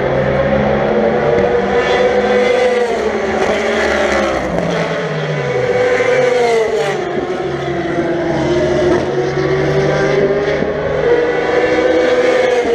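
Racing car engines running hard on the circuit, loud and continuous. Their pitch rises and falls several times as cars accelerate, shift and lift off.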